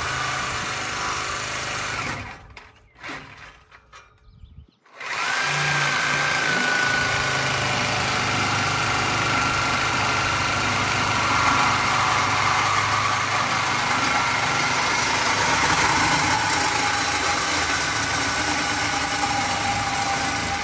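Reciprocating saw cutting through the truck's steel exhaust pipe, a steady motor whine over a buzzing hum. It runs, stops about two seconds in, and starts again about five seconds in, then cuts steadily.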